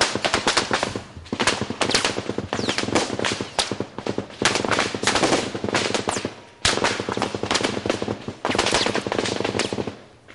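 Heavy automatic gunfire: rapid runs of many overlapping shots, starting again every second or two and dying down near the end.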